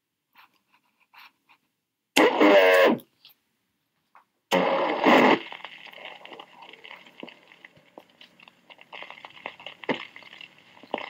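Dallas police radio Dictabelt recording played back at half speed. Two short loud bursts of slowed, distorted transmission, a few seconds apart, then a hissing open channel with scattered clicks.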